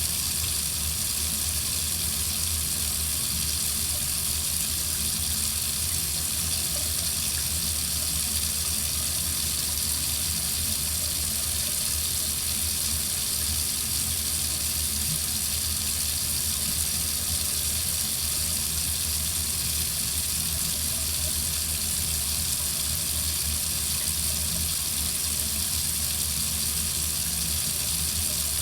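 Water running steadily from a tap into a sink, an even, unbroken rush of water.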